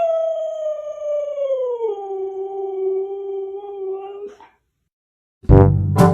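Husky howling: one long howl that slides down in pitch about two seconds in, then holds steady before stopping. After a short gap, loud brass music starts near the end.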